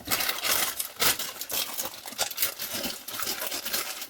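Plastic packaging crinkling and rustling with a dense run of small clicks and taps, as microphone kit parts are handled and unpacked.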